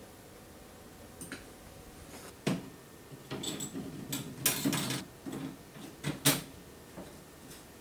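Irregular clicks and knocks with some rustling, as of objects being handled and set down. A sharp knock comes about two and a half seconds in, then a busy stretch of clicking and rustling. The loudest knocks fall about four and a half and six seconds in.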